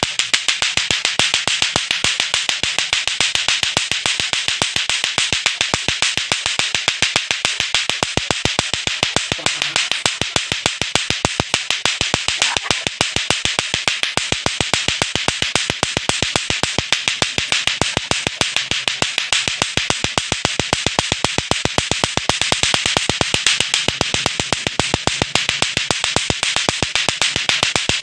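Lato-lato clacker toy: two hard plastic balls on a string swung up and down so that they strike each other above and below the hand, in a fast, steady, unbroken run of loud clacks, several a second.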